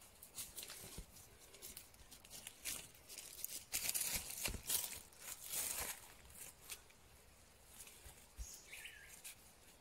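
Leafy undergrowth rustling and crackling as people walk through it barefoot, pushing past plants, in a quick run of brushing sounds that is loudest about four to six seconds in. A brief high chirp comes near the end.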